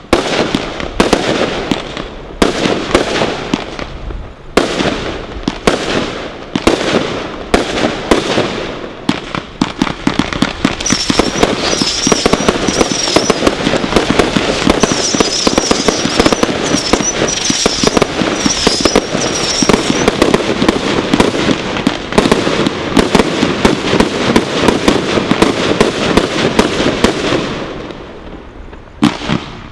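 Brothers Pyrotechnics Godfather firework display kit firing. First come separate sharp launch thumps and bursts, once or twice a second. From about ten seconds in they merge into a dense, continuous barrage of rapid reports and crackle, with a high warbling whistle for several seconds in the middle. The barrage thins out and dies away near the end.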